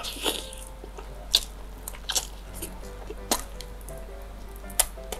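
Close-up eating sounds: wet lip smacks and finger-licking while chewing fried chicken in cheese sauce, a sharp wet smack every second or so.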